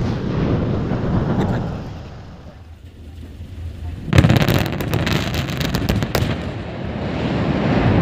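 Open-cast mine blasting. The rumble of one blast dies away, then about four seconds in a second blast goes off with a sudden bang. A run of sharp cracks follows for about two seconds, and then a long, steady rumble.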